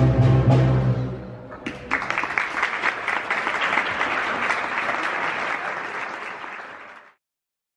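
A school concert band of brass and woodwinds sounds its last held chord, which dies away in the hall. Then the audience applauds for about five seconds, and the applause cuts off abruptly.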